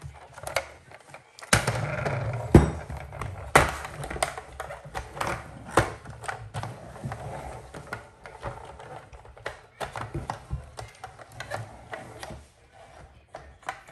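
Plastic toy car knocking and clattering on a wooden tabletop as it is flipped over and handled, an irregular run of sharp knocks, the loudest a few seconds in.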